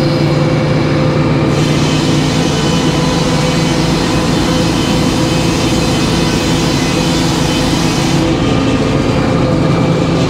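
New 56-inch B. H. Payne F-pattern circular sawmill blade ripping a board off a log. The cut starts about a second and a half in and ends about eight seconds in, over the steady drone of the mill running.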